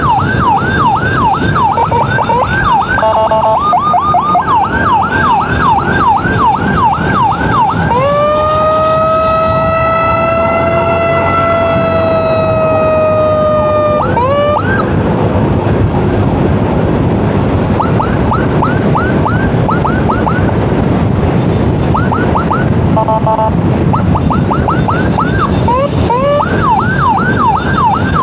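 Electronic emergency siren on a fast yelp, about three falling sweeps a second, broken twice by a short stuttering tone. About a third of the way in it switches to a long steady horn-like blast lasting about six seconds, then goes back to the yelp. Motorcycle engine and traffic noise run underneath.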